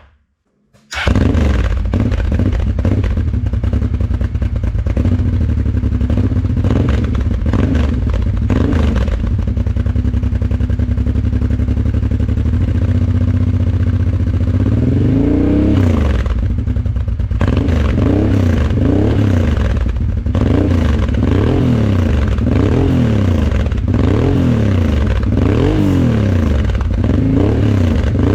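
Honda Transalp 600's V-twin engine running through an Arrow Dakar aftermarket exhaust. After a second of silence it idles steadily, then from about halfway through the throttle is blipped over and over, each rev rising and falling, about once a second.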